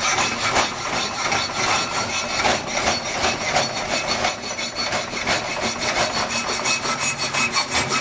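Continuous rapid rasping and scraping of a hand file worked back and forth.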